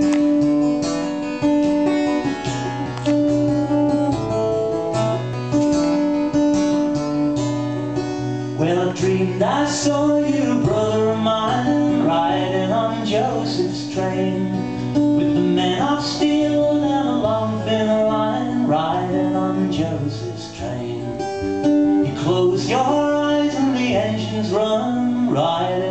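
Acoustic guitar playing the song's opening, with a steady bass line under held notes. About nine seconds in, a man's singing voice joins and carries on over the guitar.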